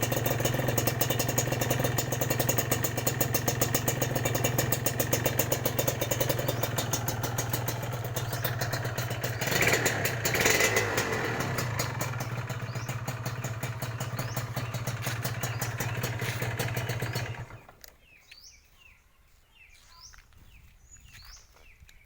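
Two-stroke Kawasaki Ninja R motorcycle with a modified exhaust idling with a rapid, even crackle, swelling briefly about ten seconds in. It stops abruptly a few seconds before the end, leaving faint bird chirps.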